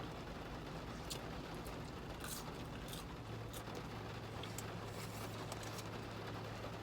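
Steady rain patter with scattered short clicks. A low, even hum starts about three seconds in.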